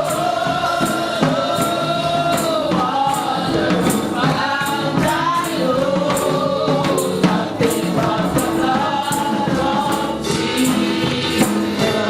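Gospel music: voices singing a melody over a steady tambourine beat.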